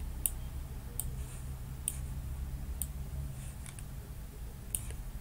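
Sharp computer mouse clicks, roughly one a second with a quick pair near the end, over a steady low hum.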